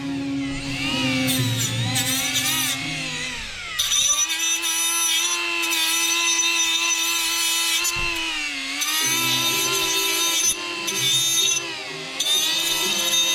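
Handheld grinder running on sheet-metal auto body, a steady high whine whose pitch sags and recovers three times as the tool is pressed into the metal and eased off.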